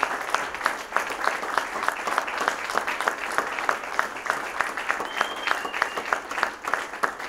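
Audience applauding: many people clapping steadily in a room.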